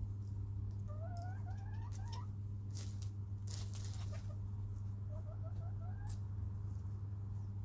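Chickens giving soft, rising chirping trills in two short runs, with sharp rustles of pecking and scratching in wood chips in the middle, over a steady low hum.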